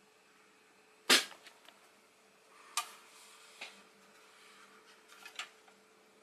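Clicks and knocks from a 1/6 scale action figure and its display stand being fitted together by hand: one sharp snap about a second in, then a few softer taps.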